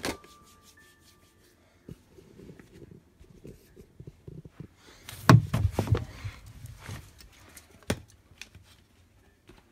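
Handling noise: rubbing, scraping and knocks as the phone is moved about and set up. They are loudest in a cluster of bumps just past halfway, with a single sharp knock about two seconds later.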